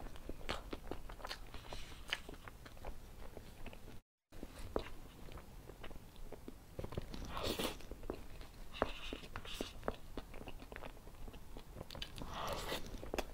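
Close-miked eating of a cream-covered sponge cake with a metal spoon: soft wet chewing, mouth and lip clicks, and a few louder swells as spoonfuls are scooped and taken in. The sound drops out briefly about four seconds in.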